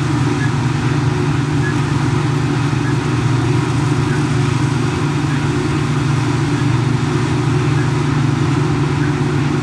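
New Holland FX450 self-propelled forage harvester running steadily under load, cutting and chopping wholecrop wheat, together with the New Holland tractor and trailer alongside: a constant deep engine drone.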